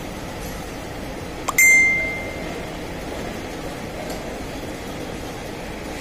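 A single sharp metallic clink about a second and a half in, ringing on for nearly a second with one clear high tone, over a steady background hum.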